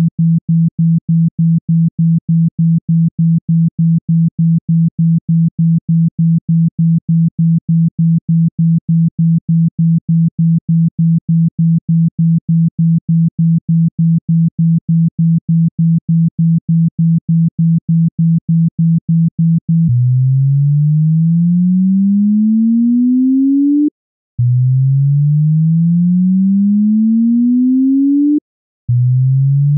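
Synthesized low sine tone of a phone-speaker water-eject track. For about twenty seconds it is a low hum pulsing about three times a second, then it changes to smooth rising sweeps, each about four seconds long, separated by short breaks.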